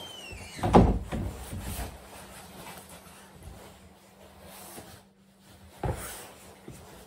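A closet door pushed shut: a short falling squeak, then a loud knock under a second in, followed by a second or so of rustling and handling. A second, softer thump comes near the end.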